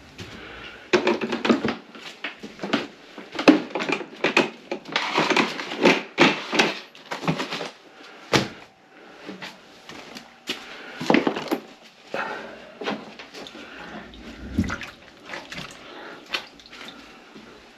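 Irregular knocks, clatter and rustling of things being handled and moved about in a kitchen, close to the microphone.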